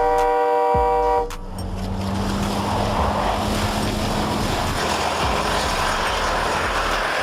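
A train's multi-tone air horn sounds a chord and cuts off about a second in. A steady rushing rumble of the snow plow train running follows, with a low hum under it.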